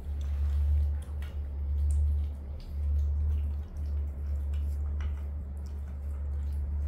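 Faint wet smacking and small clicks of baby macaques eating noodles and greens off plates, over a low, wavering rumble.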